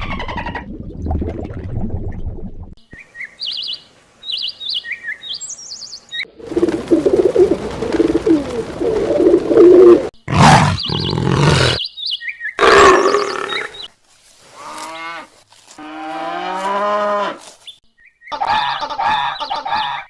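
A string of short animal-call clips with abrupt cuts between them. Bird chirps come first, then several louder, longer calls from larger animals, some of them pitched calls that bend and fall.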